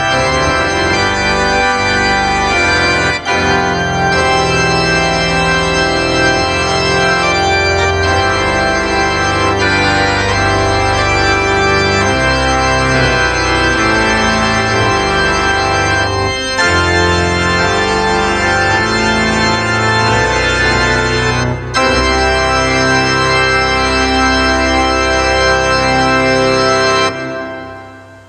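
Church organ playing full, sustained chords over a deep pedal bass, the chords changing every second or two with short breaks between phrases; the last chord dies away near the end.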